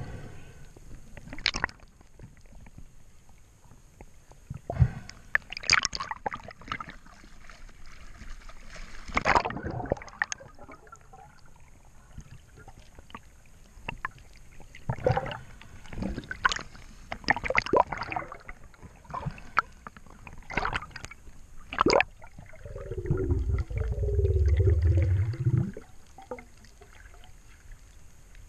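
Underwater sound picked up through a diving camera's housing: scattered sharp knocks and clicks of gloved hands and gear against it, and, about three-quarters through, a low gurgling rumble lasting about three seconds.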